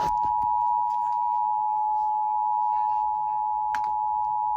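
Emergency Alert System two-tone attention signal on a TV broadcast: a loud, steady two-note tone held without a break.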